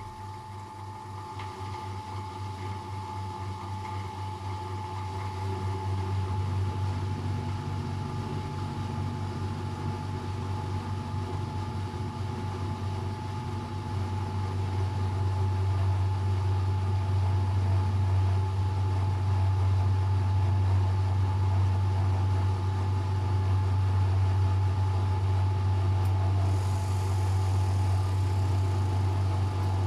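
Luxor WM 1042 washing machine on its spin cycle: a steady low hum with a thin whine above it, growing louder over the first half and then holding steady. A faint hiss joins near the end.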